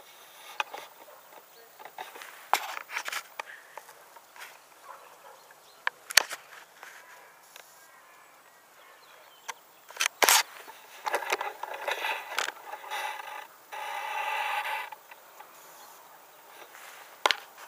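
Close handling noise from fishing tackle as a caught roach goes into the keep net and the rod is got ready: scattered clicks, knocks and scrapes. A steadier sound lasts about three seconds, about two thirds of the way through.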